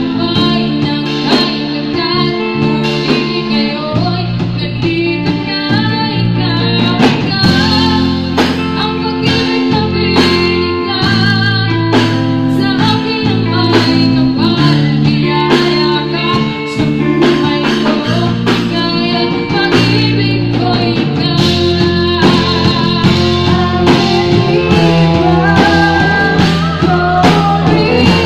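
Live band playing a song: electric guitar, electric bass and drum kit, with a woman singing lead into a microphone.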